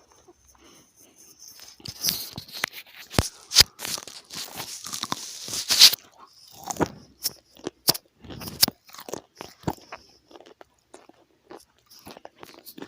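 Crunchy food being bitten and chewed close to the microphone. Quiet at first, then a dense run of crackly crunches about two seconds in, easing into separate sharp crunches.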